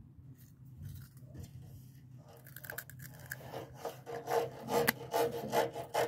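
Irregular rubbing and scratching close to the microphone, starting about two seconds in and growing louder toward the end.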